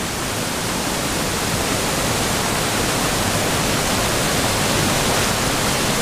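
Waterfall pouring over rock ledges into a pool, a loud, steady rush of white water heard from right beside the falls.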